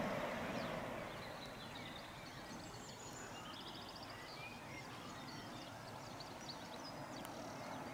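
Birds singing: many short chirps and whistles, with a quick trill about three seconds in. Underneath, over the first second or so, the low noise of a diesel train going away into a tunnel fades out and leaves a faint steady background.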